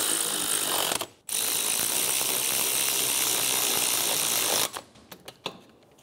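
Power ratchet running on 14 mm caliper bracket bolts in two runs: a short one that stops about a second in, then a longer one of about three and a half seconds. It cuts off near the end and is followed by a few light clicks of the tool on the bolt.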